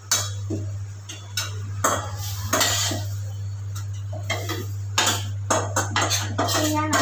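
A spoon scraping and knocking against a stainless-steel kadai as cooked chutney mixture is scraped out into a mixer-grinder jar: an uneven run of clinks, scrapes and sharp taps, the taps coming thicker in the second half.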